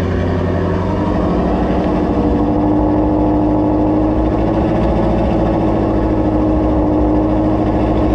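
Twin-turbo Ford Mustang Shelby GT350R's 5.2 L flat-plane-crank V8 idling steadily through its quad exhaust tips. The turbos are new and not yet broken in.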